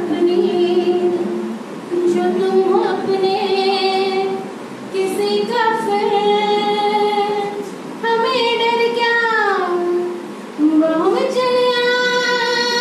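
A woman singing solo into a handheld microphone: phrases of long held notes with short breaths between them. About nine seconds in, one phrase slides downward, and near the end she rises into a long steady note.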